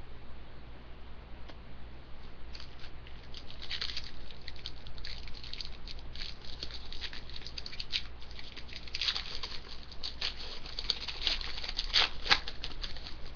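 Foil trading-card pack being crinkled and opened, with cards shuffled and flicked by hand: a dense run of small crackles and clicks from a couple of seconds in, sharpest near the end.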